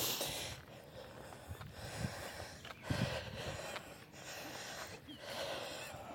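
A hiker walking on a gravel trail, breathing audibly in several long breaths, with footsteps crunching on the gravel.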